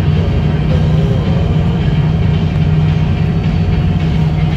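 Lobster boat's engine running steadily under way, a constant low drone with little change in level.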